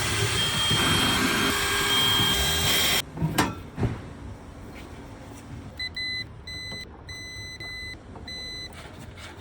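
A loud rushing noise for about three seconds that stops abruptly, a sharp knock, then a run of short, high electronic beeps at about two a second for some three seconds, typical of a vehicle's warning chime.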